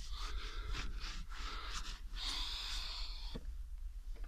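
Cloth rubbing over a car's painted plastic bumper, wiping off scratch-remover polish in uneven hissing strokes, one longer stroke in the middle and quieter near the end.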